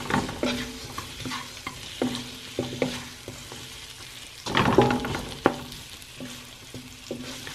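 Shell-on shrimp sizzling in oil in a nonstick wok while a wooden spatula stirs and scrapes them against the pan in short strokes, with one louder stretch of stirring about halfway through.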